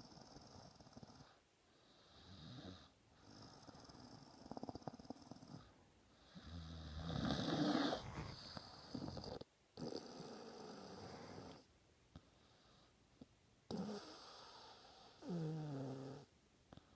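A person snoring: a series of rough, noisy breaths with short pauses between them, the loudest about halfway through, and a short pitched snore that drops in pitch near the end.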